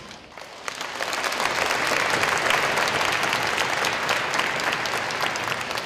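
Audience of children and adults applauding, the clapping starting about a second in, building quickly and then holding steady.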